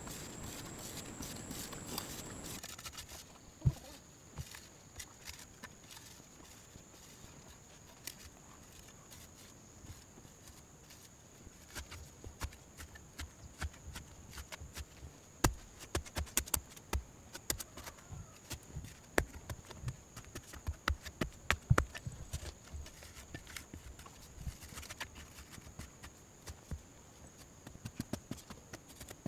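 Irregular hollow knocks and clacks, like sticks or poles being handled and knocked together, coming thickest through the middle, over a steady thin high whine. A soft rushing hiss in the first couple of seconds stops abruptly.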